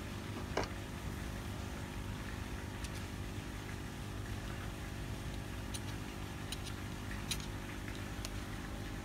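Outboard motor idling steadily, with a few light clicks on top.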